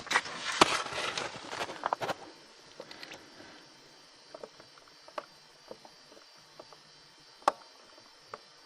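A stick prodding and stirring in shallow water among rocks: a flurry of splashing and scraping with sharp clicks for the first two seconds, then scattered single small taps.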